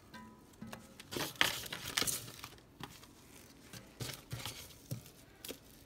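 Irregular crinkling and rustling from gloved hands handling onion slices and raw chicken in the pots, with a few louder crackles a little over a second in and around two seconds.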